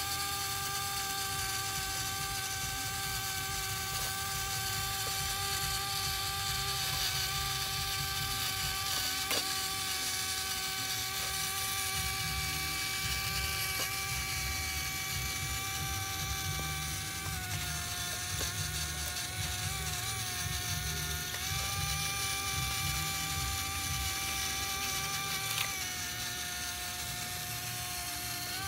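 Small electric motor and plastic gears of a DIY toy RC tractor, running with a steady whine over a gear rattle. The pitch steps down and back up a few times in the second half.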